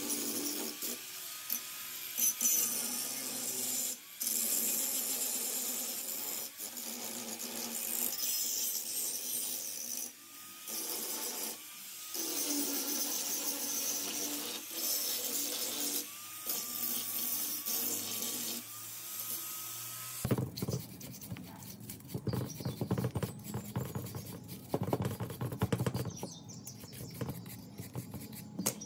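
A small power tool running, its pitch dipping again and again as it is pressed into the work. About two-thirds of the way through it gives way to quick, irregular scraping and clicking of hand work on metal parts.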